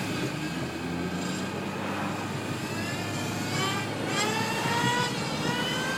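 Remote-control car's motor whining at high revs, its pitch rising steadily over the last couple of seconds as it speeds up, over the low steady drone of the chase car.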